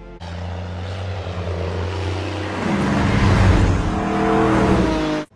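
Vehicle engines running loudly in a film sound effect, with the engine note climbing in pitch over the last couple of seconds before cutting off abruptly.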